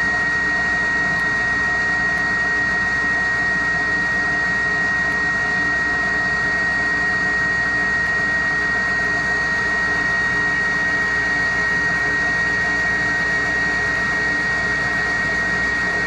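Wet ring dental vacuum pump running steadily with its valve open so air is drawn in through it, a constant machine hum with a steady high-pitched whine on one note. The pump has weak suction and runs hot, which the technician calls not a healthy pump.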